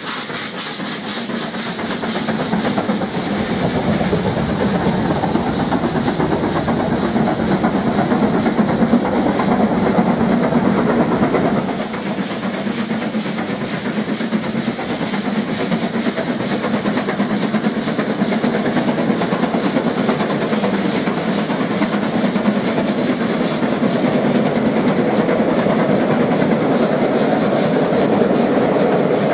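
Double-headed steam train passing: LMS Jubilee 4-6-0 45690 Leander and 8F 2-8-0 48151 working hard, with rapid exhaust beats and hissing steam from the cylinder drain cocks. About a third of the way in the locomotives have gone by and the coaches follow, their wheels rolling steadily over the rails.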